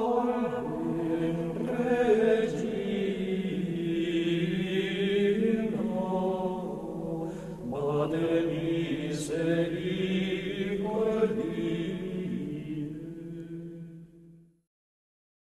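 Unaccompanied male voices singing Gregorian chant, a slow melody that moves in steps, with a short breath between phrases about halfway through; the singing stops about a second before the end.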